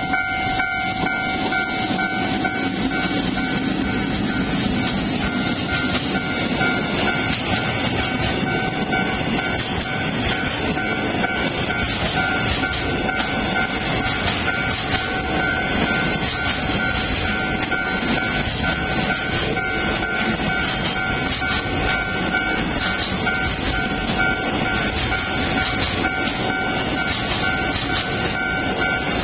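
A long container freight train hauled by an EF65 electric locomotive passing close by, its wheels rumbling and clattering steadily over the rail joints. A ringing tone that pulses about twice a second carries on over it throughout.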